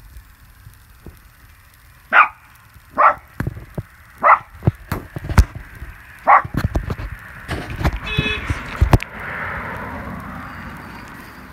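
Miniature fox terrier giving four short, sharp barks spread over about four seconds, among a run of knocks and thumps. Near the end a soft rushing noise slowly fades.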